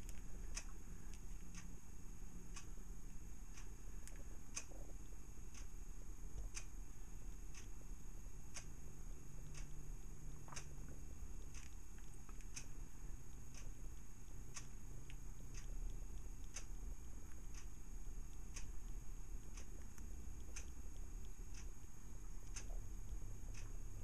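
A clock ticking steadily, about once a second, over a steady low hum and a faint thin high whine.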